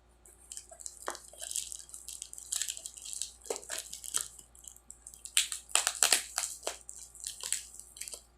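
Tightly sealed parcel packaging being pulled and torn open by hand: irregular crinkling and crackling, with a louder flurry of sharp crackles a little past the middle.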